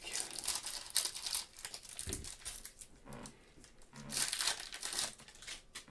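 Clear plastic trading-card pack wrapping crinkling in gloved hands as it is cut open with scissors and handled, in an irregular run of rustles that ease off for a while midway.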